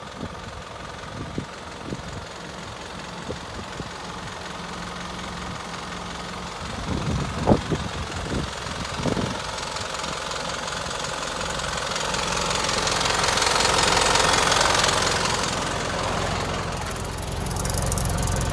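Toyota Dyna truck's S05C four-cylinder diesel engine idling with a steady knocking clatter. A few sharp clicks come about seven to nine seconds in, and the sound grows louder and fuller from about twelve seconds in.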